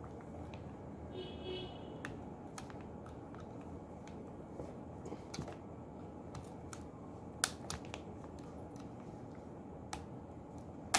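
Small screwdriver prying and scraping at the plastic top cover of a magnetic contactor, giving scattered light clicks and ticks, the sharpest about seven seconds in, over a steady low hum.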